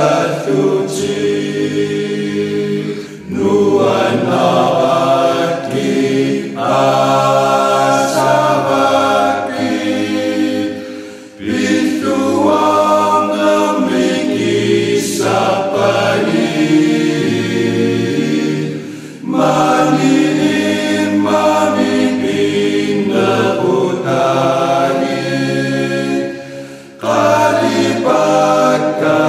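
Choir singing slow, sustained phrases, with short breaks between phrases about every eight seconds.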